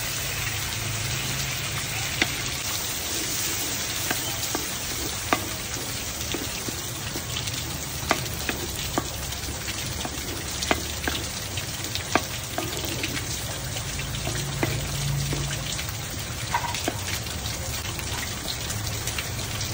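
Sliced onions and fresh tomatoes frying in hot oil with tomato paste in a metal pot over a wood fire: a steady sizzle, with scattered sharp clicks as the pot is stirred.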